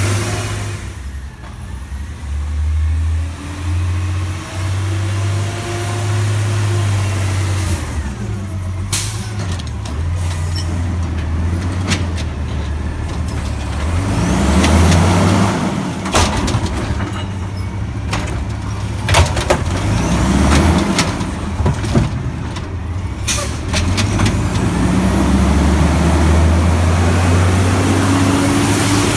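Natural-gas Autocar WX garbage truck engine running and revving, its pitch rising and falling. Short air-brake hisses come several times in the middle, and the engine grows louder as the truck comes alongside near the end.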